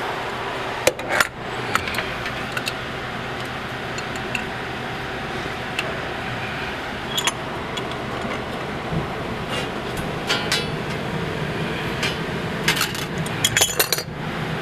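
Scattered metal clinks and scrapes of a pipe wrench and gas fittings as a flexible gas line is connected, with a quick run of clinks near the end, over steady background noise.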